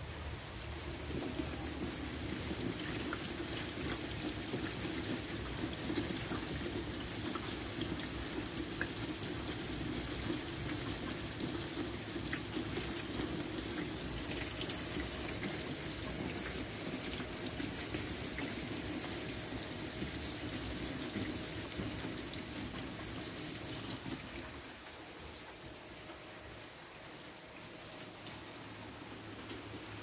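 Steady rain falling onto a wet walkway and puddles: a dense hiss dotted with small drop ticks. About three-quarters of the way through, a lower, fuller layer drops away and the rain becomes quieter.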